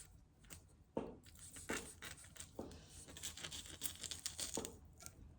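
Faint kitchen handling sounds: scattered light knocks and clicks with some rustling, as food and utensils are handled on the counter.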